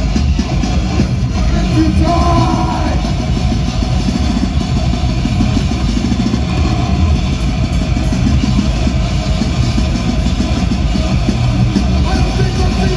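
A loud live rock band playing heavy, distorted music, with drum kit and guitar in a dense, unbroken wall of sound.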